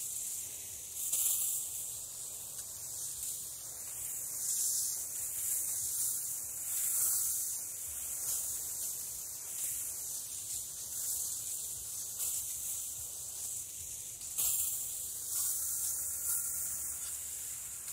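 Water spraying from a garden hose watering wand on a shower setting onto loose soil and plants: a steady hiss.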